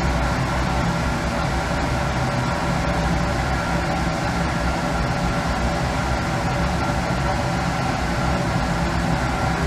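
Steady hum of lab ventilation, such as a fume-hood or air-handling fan, with a faint held whine in it.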